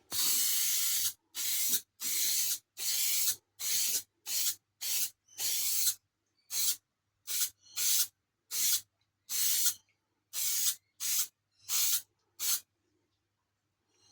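Aerosol spray can of paint or primer being sprayed in a long burst and then about fifteen short bursts, each a sharp hiss, stopping shortly before the end.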